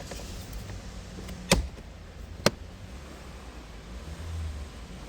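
Two sharp clicks about a second apart, typical of the plastic cabin-filter access cover or trim snapping back into place, over a steady low background rumble.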